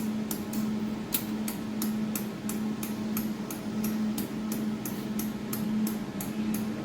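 Rapid, evenly spaced clicking, about three clicks a second, as the laser welder's adjustment knob is turned to move the laser support. A steady machine hum runs underneath.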